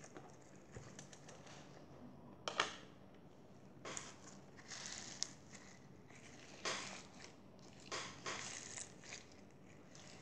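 Crunchy slime being squeezed and kneaded in the hands, giving short, irregular crackling crunches every second or two.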